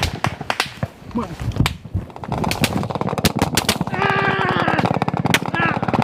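Gunfire in a firefight: scattered single shots for the first two seconds, then sustained rapid automatic fire from about two seconds in. A man shouts over the shooting near the middle.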